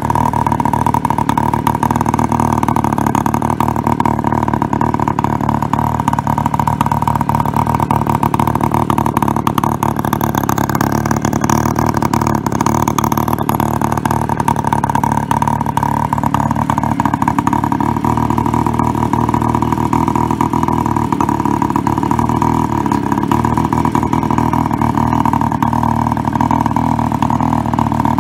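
Babetta 210 moped's small two-stroke single-cylinder engine idling low with a touch of throttle, running steadily through an Akrapovič silencer.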